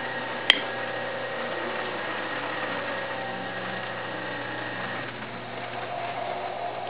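Electric potter's wheel running with a steady mechanical hum while small bonsai pots are thrown, its tone shifting slightly about five seconds in. A single sharp click about half a second in.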